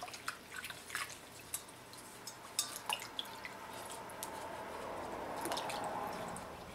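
Warm water splashing and dripping in a stainless steel bowl as hands swish and squeeze fabric samples to rinse the gum paste out, with small scattered drips and a fuller sloshing swell near the end.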